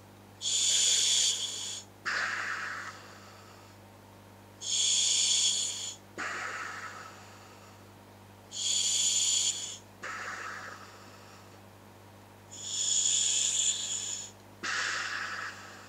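A person breathing slowly through a hooded gas mask fitted with a scuba regulator. There are four breaths, each a loud, high hiss of air followed by a softer rush that fades away.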